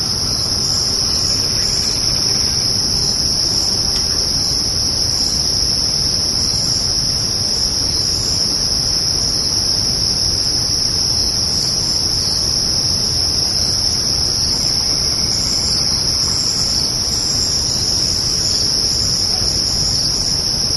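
Crickets trilling in a continuous, unbroken high-pitched chorus, with a steady low rumble beneath.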